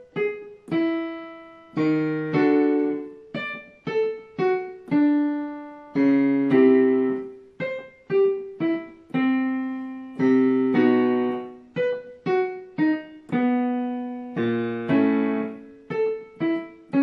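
Electronic keyboard with a piano sound playing a warm-up pattern of major-chord notes, struck one after another and sometimes together, each left to fade. The pattern repeats at changing pitches.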